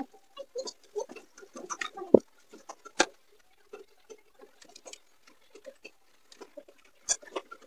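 Irregular light clicks and taps of hand tools and parts being handled on a TV mainboard while the horizontal output transistor is swapped out, with sharper snaps about two and three seconds in and again near the end.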